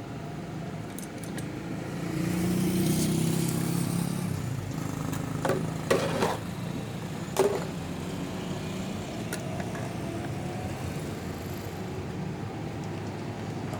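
Background engine hum of a passing vehicle that swells and then eases off, with a few sharp clicks and clinks about halfway through.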